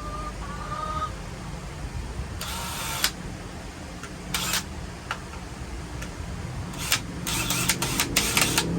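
Cordless drill driving a wood screw in at an angle, run in several short trigger bursts, quicker and more frequent near the end.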